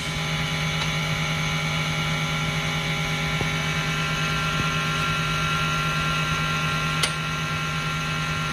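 A workshop machine running steadily, with a constant low hum and a higher whine, and a single sharp click about seven seconds in.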